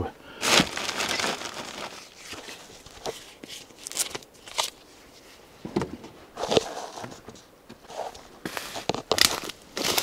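Irregular rustling, crinkling and sharp knocks of things being handled in a car's boot, then leaves and branches rustling as a hand pushes into cut birch branches.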